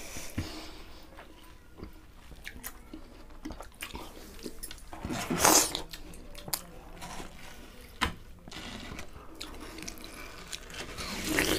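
People biting and chewing into watermelon slices face-first without using their hands: scattered wet bites and mouth sounds, with a louder rush of noise about halfway through.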